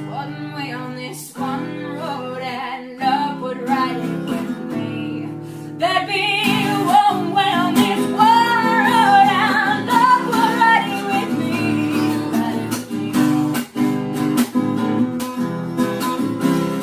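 Song with strummed acoustic guitar; a singing voice comes in about six seconds in.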